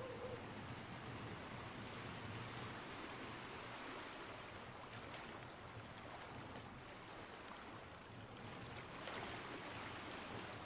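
Faint river water ambience: the surface lapping gently, with a steady soft hiss.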